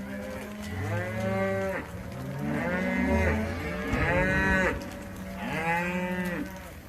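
A herd of cattle mooing: four long, drawn-out calls in quick succession, some overlapping, from more than one cow.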